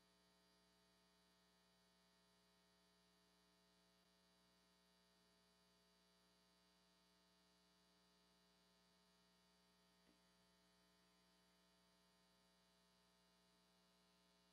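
Near silence: a faint, steady electrical mains hum, with one faint click about ten seconds in.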